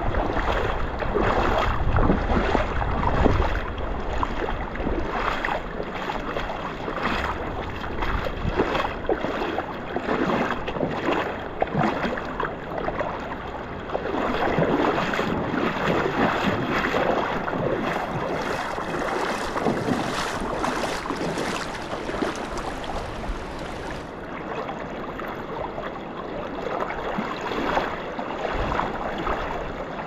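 Water splashing and sloshing close to the microphone: a continuous jumble of small irregular splashes, with a brighter, hissier stretch about two-thirds of the way through.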